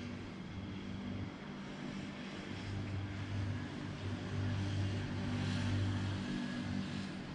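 Steady rain hiss under a low engine drone that swells from about two and a half seconds in and fades out around six seconds.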